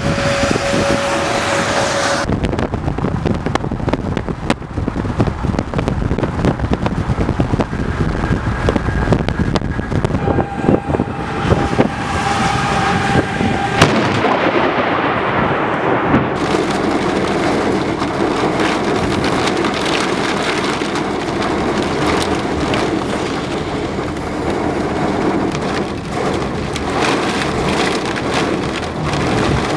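Thunderstorm wind buffeting the microphone, with rain and road noise; the sound changes abruptly a few times, and a steady tone sounds briefly twice.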